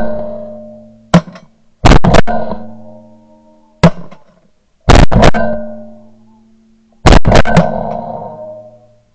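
A volley of shotgun shots, about a dozen in all, fired singly and in quick pairs and triplets. Each group ends in a long echo that dies away over a second or two.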